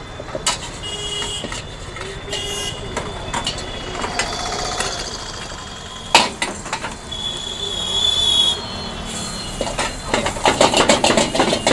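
Street traffic rumbling with several short vehicle horn toots. From near the end, a rapid metal clatter of a spatula against a kadhai.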